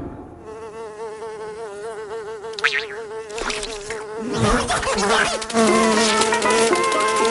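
Cartoon sound effect of a fly buzzing: a buzz whose pitch wobbles up and down. About halfway through it grows louder, and a second, lower buzz and short clicks and knocks join in.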